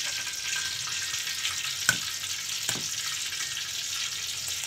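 An egg tapped twice against the rim of a stone mortar to crack its shell: two sharp clicks, the second softer, over a steady background hiss.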